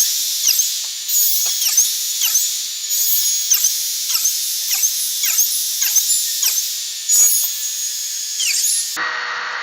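A router running with a steady high-pitched whine. Its pitch dips briefly about twice a second as it cuts biscuit slots into wood. The whine cuts off near the end.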